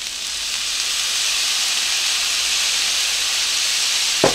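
Soy sauce sizzling and hissing as it is poured over rice in a hot skillet. The steady hiss builds over the first second and then holds. A brief knock comes near the end.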